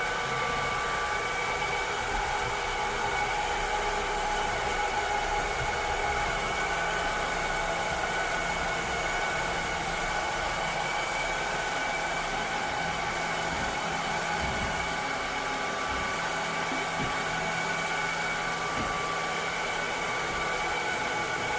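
Cleaning robot running steadily: an even whirring hiss with several steady whining motor tones on top.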